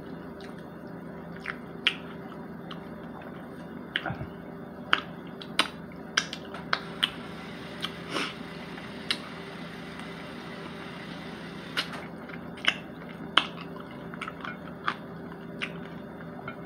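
Close-up eating of fried chicken by hand: mouth sounds of chewing, with a string of sharp, wet clicks and smacks at irregular intervals. A steady low hum runs underneath.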